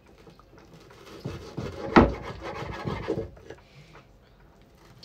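Kitchen knife cutting raw chicken on a wooden cutting board: a short run of knocks and scraping strokes against the board, the loudest knock about two seconds in.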